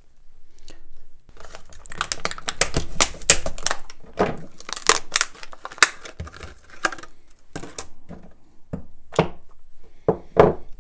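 Plastic packaging crinkling and tearing as a hardware part is unwrapped by hand, in a dense run of sharp crackles. Scattered clicks and taps follow near the end.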